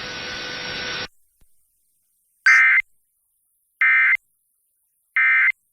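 Emergency Alert System end-of-message signal: three identical short bursts of SAME digital data tones, each about a third of a second long and a little over a second apart, starting about two and a half seconds in. They mark the end of the alert. Before them, a second of steady hiss cuts off abruptly.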